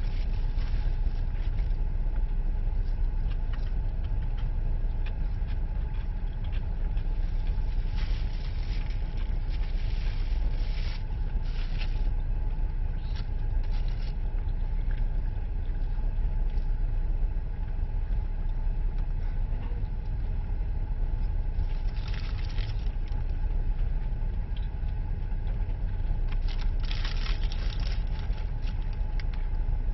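Car cabin noise: a steady low rumble with a faint steady hum, and several brief swells of hiss from passing traffic or tyres. The strongest swell comes near the end.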